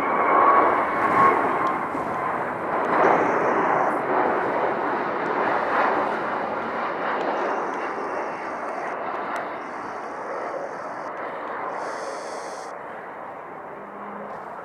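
Boeing 757-200F freighter's turbofan engines on low final approach: a broad jet rumble with a thin whine in the first second or so, loudest over the first several seconds and then gradually fading as the plane moves away toward the runway.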